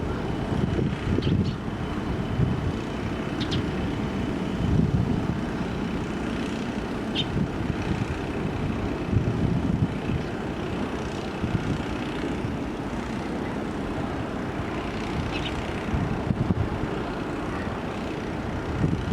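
Low, uneven rumble of jet airliner engines running, with a few faint short high chirps.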